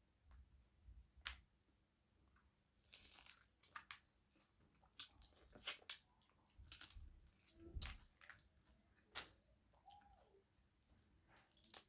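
Boiled crayfish shells cracking and being pulled apart by hand, with chewing: faint, scattered small cracks and crunches.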